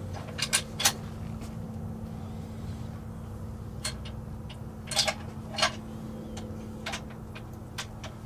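A handful of short, sharp clicks and knocks, three close together in the first second and a few more spread through the rest, over a steady low hum.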